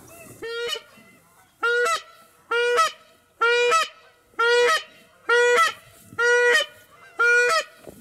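Goose honking: one loud, evenly repeated honk about once a second, eight in all, the first one faint.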